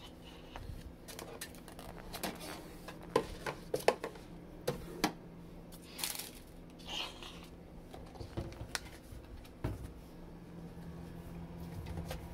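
Food containers and packages being put back onto refrigerator shelves: scattered knocks and clicks of items set down, with a short rustle of plastic packaging, over a steady low hum.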